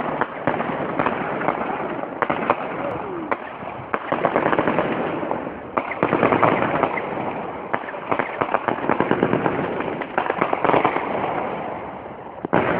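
Arrest Warrant 72-shot firework cake firing: a rapid, continuous series of shots launching comets and bursting overhead, the reports coming several a second and packing densest in the middle of the sequence.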